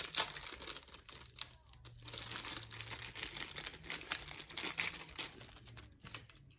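Packaging crinkling and rustling in irregular crackles as a small item is handled and unwrapped.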